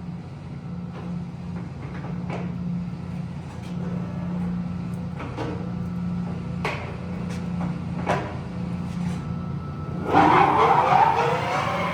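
Engine lathe spindle and headstock gearing running steadily at 355 RPM with a low hum and a few light clicks. About ten seconds in the spindle speeds up and the pitch climbs as the lathe is shifted to a higher speed (925 RPM).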